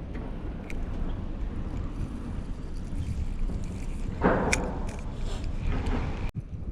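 Wind buffeting the microphone as a steady low rumble, with a short rustling burst and a few sharp clicks about four seconds in.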